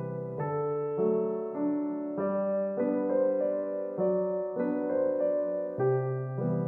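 Gentle solo piano background music: a melody of notes changing about every half second over held low notes.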